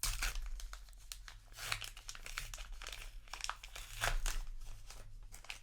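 Paper booster-pack wrapper crinkling and tearing as it is handled, in quick crackly bursts that are loudest near the start, about a second and a half in, and about four seconds in.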